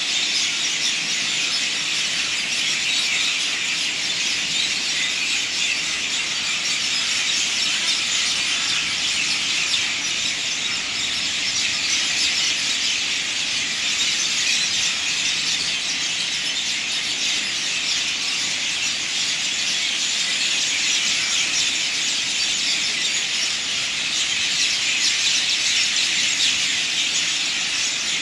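Dense, steady, high-pitched insect chorus, an unbroken buzzing hiss.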